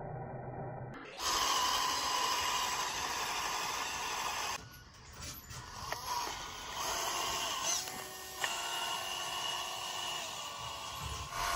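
Small motor and gear drive of a handmade miniature Massey Ferguson 385 tractor whining under load as it pushes its rear blade through sand. The whine starts abruptly about a second in and drops away briefly about five seconds in.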